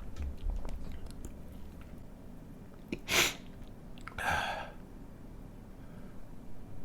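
A man sneezes once, sharply, about three seconds in, followed a second later by a longer breathy sound.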